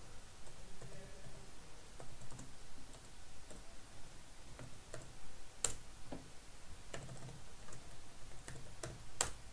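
Computer keyboard being typed on: a run of light, irregular keystrokes, with a couple of sharper key clicks, one about halfway through and one near the end.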